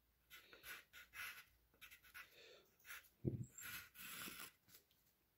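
Pencil drawing lines on paper: a series of faint, short scratching strokes, with a brief breath about three seconds in.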